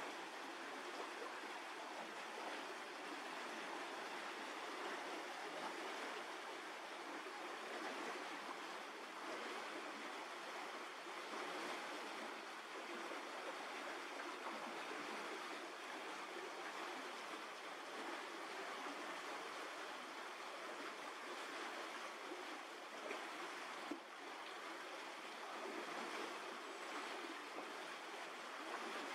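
Steady, even rushing noise with no distinct events, like running water or wind, and one brief tick about 24 seconds in.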